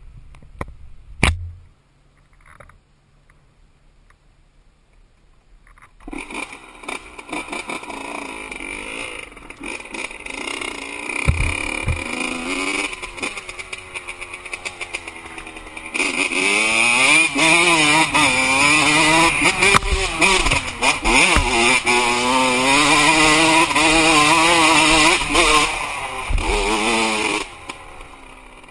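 Dirt bike engine starting up about six seconds in, then running as the bike is ridden, its pitch rising and falling with the throttle. It gets louder about halfway through and drops back near the end. A sharp click comes about a second in.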